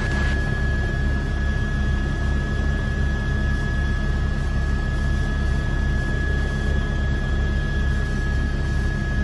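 News helicopter's rotor and turbine noise heard from inside the aircraft: a steady low pulsing rotor beat under an even rush of noise, with a constant high whine.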